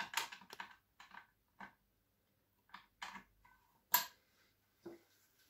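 Scattered light clicks and metallic knocks from a Sauer 303 rifle being handled while its forend is unscrewed and worked loose, with a quick cluster at first and a single sharp knock about four seconds in.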